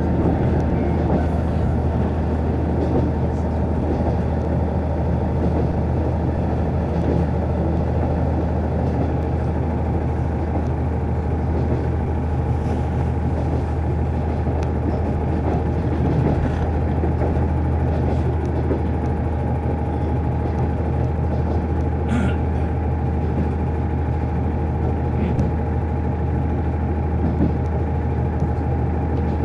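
KiHa 48 diesel railcar running along the line, heard from inside the passenger cabin: a steady low engine and running drone with a few faint ticks.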